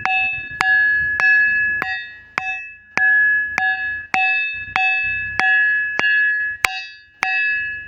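Ringing rock struck over and over with a small hand-held stone, a steady beat of a little under two strikes a second. Each blow gives a clear metallic 'tan' that rings on until the next, like a struck brass plate.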